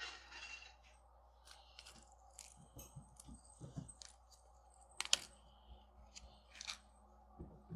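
Small metal clicks and light taps as loose steel balls and the parts of a zirconium magnetic haptic coin are handled, with a short rustle at the start and one sharper click about five seconds in.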